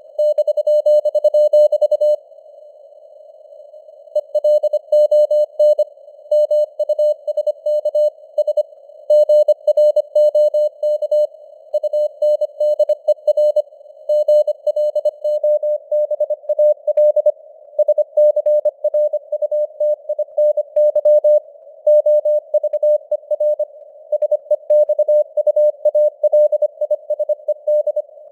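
Morse code (CW) sent at 25 words per minute as a single tone of about 600 Hz, keyed in rapid dots and dashes through a narrow band of simulated radio hiss. There is a pause of about two seconds a couple of seconds in, then steady sending resumes.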